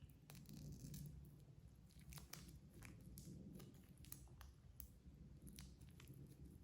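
Faint tearing, crinkling and small clicks from a rice packet wrapped in newspaper being handled, over a low hum.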